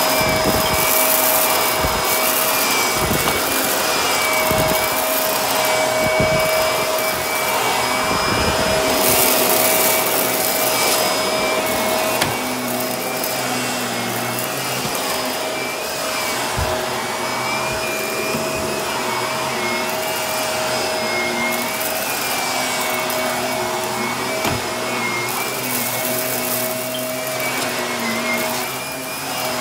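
Blue upright bagless vacuum cleaner running steadily on carpet with a motor whine, with bursts of crackling as it sucks up rice, mostly in the first part and again near the end.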